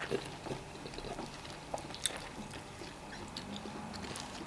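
Faint wet mouth sounds of eating fufu and vegetable soup: soft chewing and lip smacks, with scattered small clicks.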